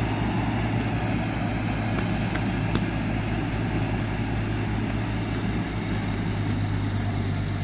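Compact tractor engine running steadily as it pulls a rear-mounted mower across the field, a constant low hum.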